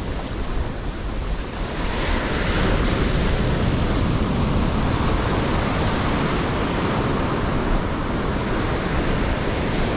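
Ocean surf breaking and washing up over the shallows of a sandy beach: a steady rushing wash that grows louder about two seconds in.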